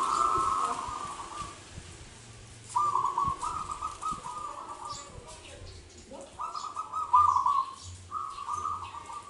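Local zebra dove (perkutut lokal) singing, repeating its phrase of rapid, rippling coos about four times, each phrase lasting one and a half to two seconds with short pauses between.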